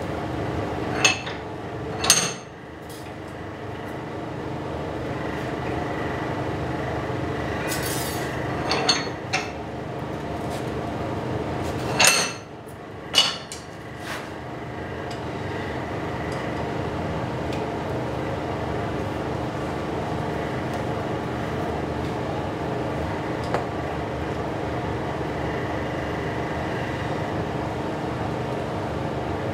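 Several sharp metallic clanks as a hot square steel bar is set in a bench vise with tongs and the vise is worked, most of them in the first half. A steady hum runs underneath.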